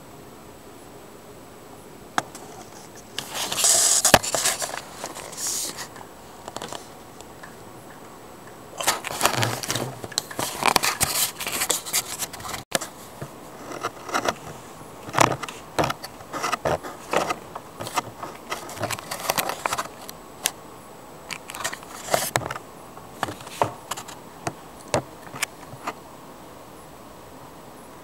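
Handling noise from a hand-held camera: irregular scrapes, rustles and sharp clicks in bursts, with a jangle like keys, starting about two seconds in and dying away near the end.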